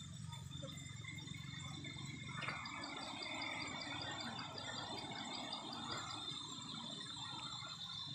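Forest ambience: a steady, high-pitched insect drone. From about two and a half seconds in, a faint rapid chirping and a soft rustling noise join it for a few seconds.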